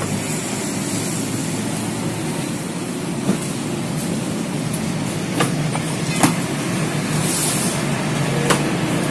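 Steady low mechanical hum of workshop background noise, with a few short, sharp metal clicks and taps from bolting the cylinder onto a small chainsaw engine's crankcase, spread over the second half.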